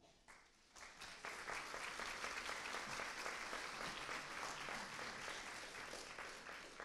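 Audience applauding. It builds up about a second in and dies away near the end.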